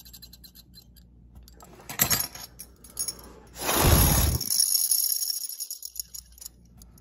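Buzzbait blade spun by blowing on it, its metal blade clicking rapidly against the rivet and wire arm. There is a short burst about two seconds in, then a longer, louder one about four seconds in whose clicking trails off as the blade slows.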